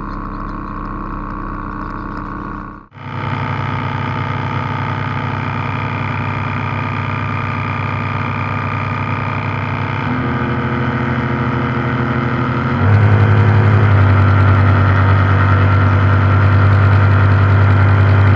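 Radio-controlled model tugboat's motor running with a steady hum. It drops out briefly about three seconds in, then runs on, getting louder in steps about ten and thirteen seconds in.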